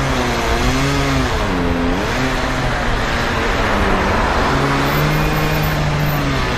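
Chainsaw cutting through a storm-felled tree trunk, its pitch sagging each time it bites into the wood and then recovering. Around four seconds in a car passes by; after that the saw runs at a steadier pitch.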